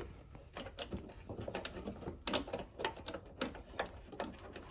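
Light, irregular clicks and taps of hand work: nuts being started by hand onto the spoiler's mounting studs.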